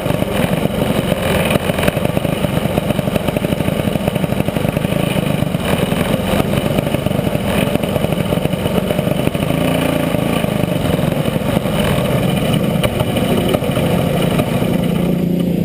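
Racing kart's engine heard from on board, running steadily at low speed with no hard revving.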